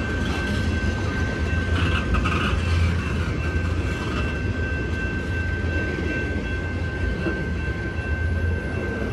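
Freight train of tank cars rolling slowly past, with a steady low rumble of wheels on the rails and a steady high-pitched squeal over it.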